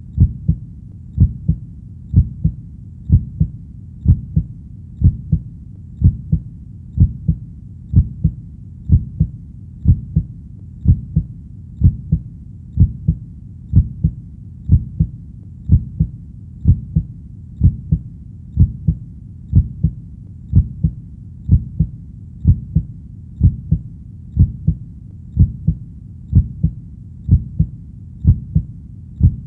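A heartbeat: steady low double thumps (lub-dub) at about one beat a second, with a faint low rumble between beats.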